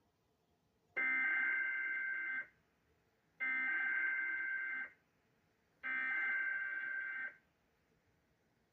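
Emergency Alert System SAME header: three identical bursts of warbling digital data tones, each about a second and a half long and about a second apart. They are the coded header that opens a new severe thunderstorm warning on NOAA Weather Radio.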